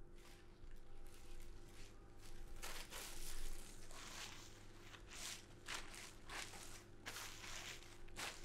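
Thin plastic bag crinkling and rustling as it is handled and pulled down over a person's head: a string of irregular crinkles, sparse at first and busier from about three seconds in, over a faint steady hum.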